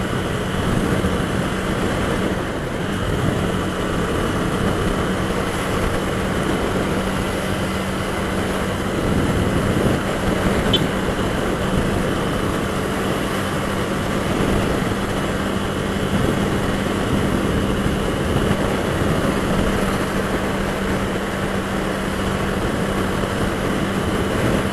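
Honda CB 250F Twister's single-cylinder engine running at a steady cruising speed of about 100 km/h, with wind rushing over the rider's microphone.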